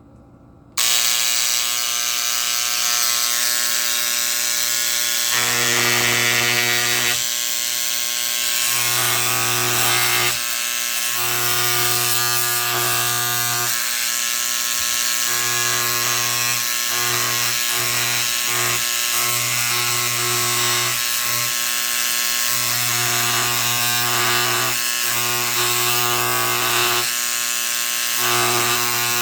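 Electric vibrating engraver buzzing against aluminum flashing as a fig tag is lettered. It is a loud, steady mains-hum buzz that starts about a second in, then cuts in and out in short runs of a second or two, one for each stroke of the writing.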